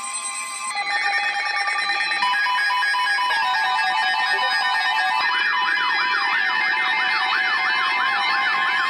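Several electronic alert tones sounding together: a steady tone, joined about a second in by a buzzing tone and then by rapid beeps, and from about five seconds in a siren-like tone sweeping up and down about two and a half times a second.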